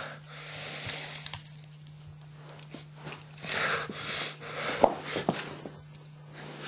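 Movement noise close to a camcorder: soft rushes of rustling and a few light knocks around five seconds in, over a steady low electrical hum.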